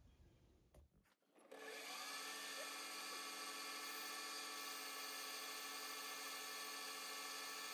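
Metal lathe starting up and running with a boring bar taking a light cut inside a brass bore. A steady whine of many even tones begins about a second and a half in and holds level.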